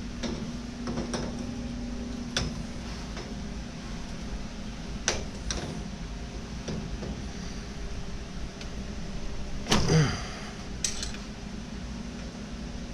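Hand wrenches clinking and clicking as they are put back and picked up, in scattered single knocks, with a louder clatter about ten seconds in. A low steady hum runs underneath.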